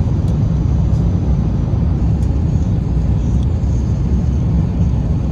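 Steady low rumble of cabin noise inside an Airbus A350 airliner on approach, airflow and engines with a faint high whine above.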